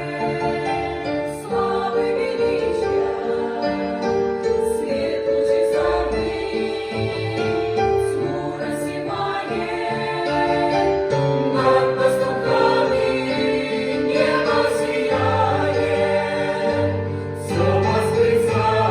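A choir singing a slow song in harmony, with sustained notes in several voice parts.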